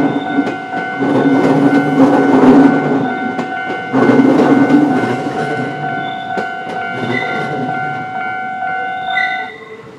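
A train passing over a level crossing, its wheels rumbling in surges and clacking over the rail joints, while the crossing's warning bell rings with steady high tones. The bell stops about nine and a half seconds in and the train sound fades.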